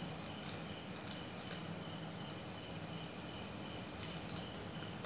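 Soft crinkling of a paper banknote being unfolded by hand, a few light crackles, over a steady high trill of crickets.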